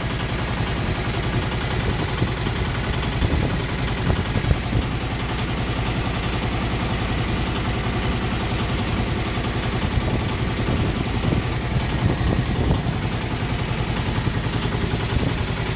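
Small river tour boat's engine running steadily under way, an even low drone with a steady hiss over it.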